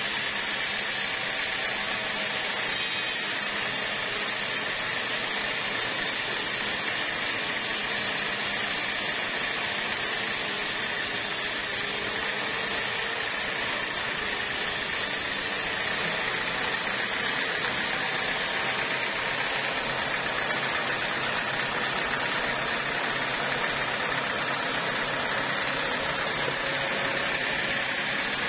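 Vertical band sawmill running and sawing through a teak cant: a steady mechanical hiss of blade and motor, with a strong high tone in the noise. The highest part of the hiss drops off a little over halfway through.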